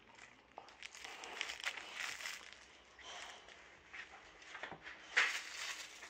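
Boxer dog mouthing and chewing a plush toy: a run of irregular rustling, crinkly noises, the loudest about five seconds in.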